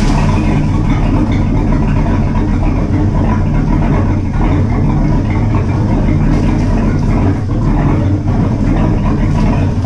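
1974 Century Resorter's Ford 302 V8 inboard idling steadily, just started, its exhaust running through newly installed Hardin marine mufflers.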